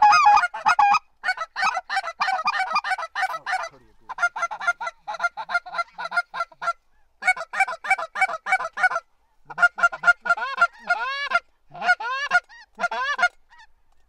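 A flock of snow geese calling: many short, high calls in quick overlapping runs, broken by brief pauses.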